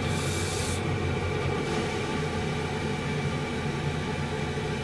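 Steady machine drone: an even low hum with a hiss over it, the hiss stronger for the first second or so.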